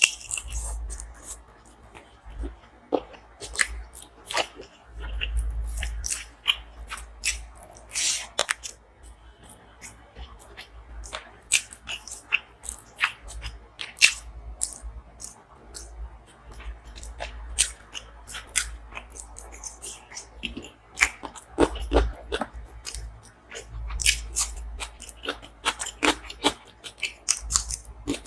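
Close-miked chewing of food: irregular wet mouth clicks and sharp crunches, several each second, with dull low thuds from the jaw.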